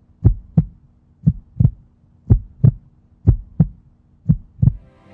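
Heartbeat sound effect: a slow double thump, lub-dub, about once a second, five beats in all over a faint steady hum. Music starts to come in near the end.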